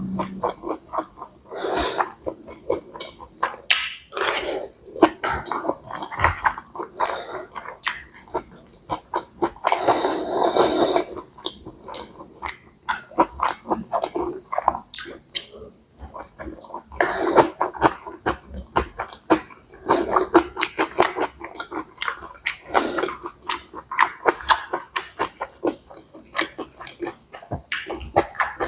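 A person chewing mouthfuls of pad see ew (stir-fried wide rice noodles with marinated pork and Chinese kale) close to the microphone: wet mouth smacks and clicks coming quickly in an irregular rhythm.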